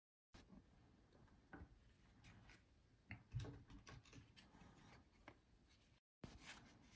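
Faint rubbing and small taps of hands handling a leather card holder, with a low knock about halfway through. Near the end a plastic card slides into one of the holder's slots.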